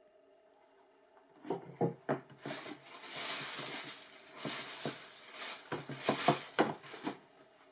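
Tissue paper crinkling and rustling inside a cardboard shoebox as hands dig through it and lift out a shoe, with a series of light knocks and taps from the shoe and box. It starts about a second and a half in and stops shortly before the end.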